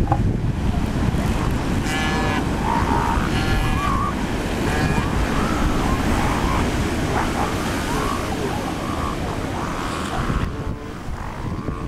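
Ocean surf breaking steadily on a sandy beach, with wind on the microphone. A few short, faint pitched calls sound between about two and five seconds in.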